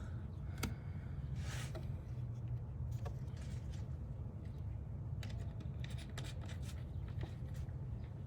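Scattered light clicks and taps from handling a bottle and the engine's oil filler cap, over a steady low hum.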